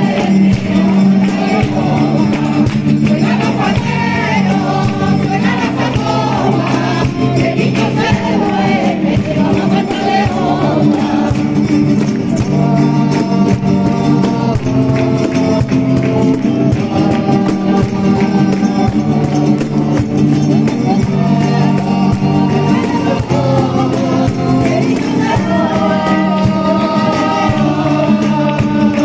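Andalusian-style mixed choir singing a Christmas carol in unison, accompanied by strummed Spanish guitars and steady rhythmic hand clapping.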